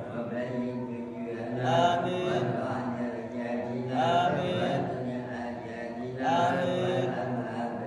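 A man's voice chanting Arabic prayer into a microphone in a slow, melodic, drawn-out style. His voice swells into an ornamented phrase about every two seconds.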